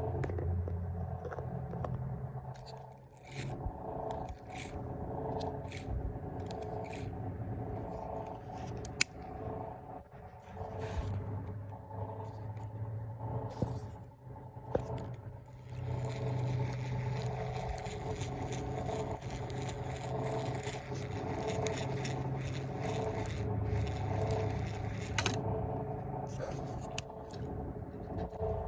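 Handling sounds from a baitcasting fishing reel being worked: uneven scraping and whirring, with a few sharp clicks. A steady hum with several fixed tones runs underneath.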